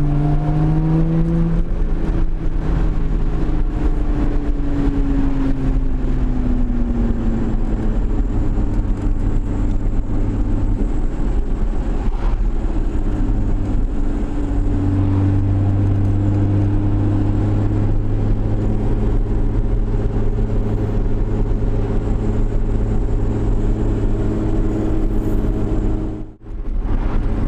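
A Lotus Evora GT's supercharged 3.5-litre V6 heard from inside the cabin over steady road and tyre noise. The engine note rises briefly at the start, falls away over the next few seconds and then holds a steady low drone while cruising. The sound drops out for a moment near the end.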